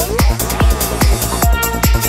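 Electronic trance-style background music with a steady kick drum, a little over two beats a second, under sustained synth layers.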